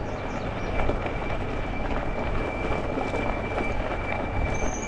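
Folding e-bike rolling down a gravel trail: a steady rumble of tyres on gravel, with a faint, steady high-pitched squeal running through it.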